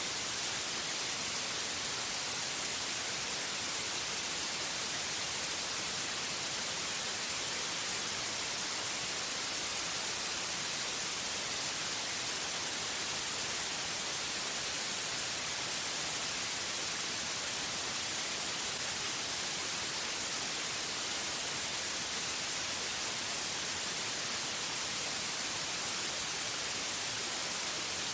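Steady synthetic white noise: an even, unchanging hiss, brightest in the high end, with no events or variation.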